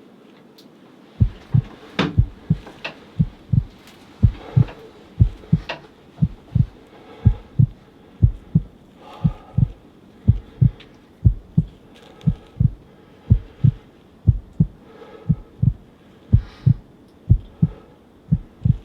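A steady heartbeat-like pulse of deep, short thumps, about two a second, from about a second in: the sound of a racing heart during the tense wait for the shot.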